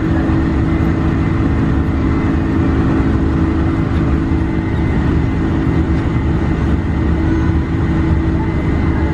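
Airliner cabin noise from a window seat: the jet engines' steady drone with a low rumble and a constant hum, while the plane climbs out low over the city after takeoff.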